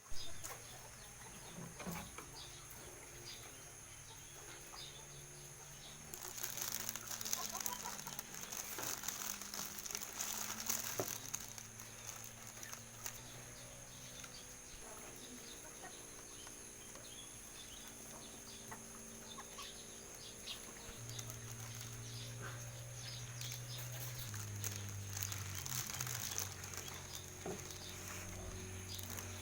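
Chickens feeding: many small pecking ticks and clucks, busiest in two spells, over low steady tones that shift pitch every few seconds.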